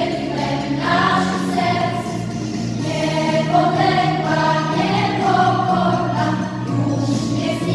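Children's school choir singing a song together in long held notes over steady low notes.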